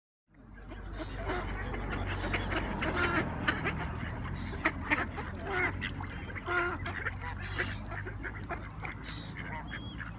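A crowd of mallard ducks quacking, many short calls overlapping, over a low steady rumble. The sound fades in just after the start.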